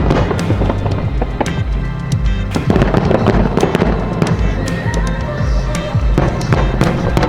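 Fireworks bursting, with many sharp pops and crackles scattered throughout, over music with a steady bass beat.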